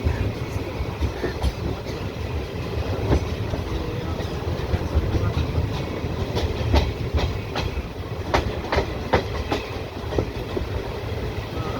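Kanchanjunga Express passenger train running along the track: a steady low rumble with the wheels clacking over rail joints, the clacks coming thickest in the middle.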